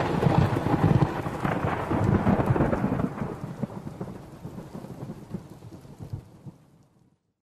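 Rain sound effect with rumbles of thunder closing a song's track. It fades out steadily and is gone about seven seconds in.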